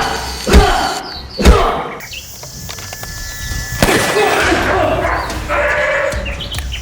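Fight scene sound effects. Three heavy thuds come about a second apart in the first two seconds, with another near four seconds in, and each is followed by short growling or grunting voice sounds.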